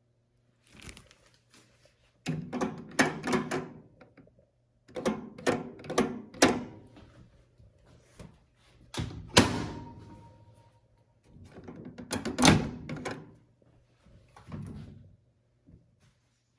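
Microwave oven door and latch being worked by hand: groups of clicks and knocks, with one heavier thunk about nine seconds in.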